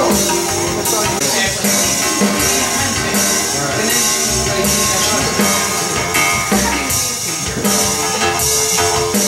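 Live electronic ambient music played from a laptop and controller through Roland amplifiers. A repeating pattern of hissing noise hits sits over low bass pulses and held notes.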